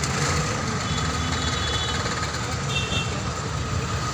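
Road traffic: the steady rumble of engines from slow-moving cars, auto-rickshaws and motorcycles close by, with a couple of brief high tones about halfway through.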